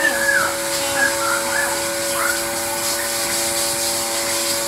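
A steady electric motor drone with a constant hum. Faint high-pitched squeaky sounds come over it during the first couple of seconds.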